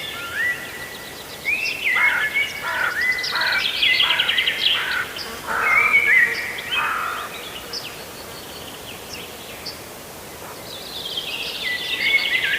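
Goslings peeping: many short, high calls overlapping, with a run of lower, repeated calls in the middle. The calling thins out about two-thirds of the way in and builds again near the end.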